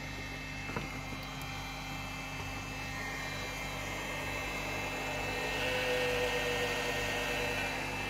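Cooling fan of an ANJING AJ-618F battery charger running with a high whistling whine over a steady electrical hum, growing louder about halfway through. The fan is dry and needs lubricating.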